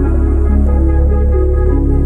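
Background ambient electronic music: a steady deep bass under slow, held synth notes that shift every half second or so.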